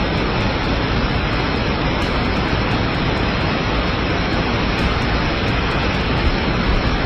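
Heavy rain pouring down, a steady, dense hiss that does not let up.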